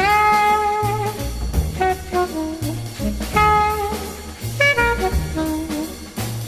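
Jazz music: a horn plays the melody, opening with a long held note that scoops up into pitch, over a steady drum kit beat.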